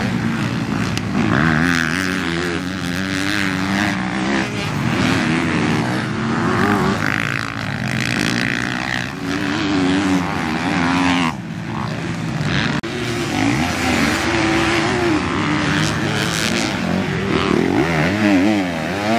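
Motocross bike engines revving up and down over and over as the bikes accelerate, shift and back off through the corners and jumps of a dirt track.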